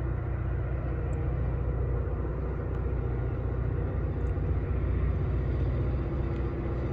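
Steady low engine rumble of a distant diesel freight locomotive, running evenly with no change in pitch or loudness.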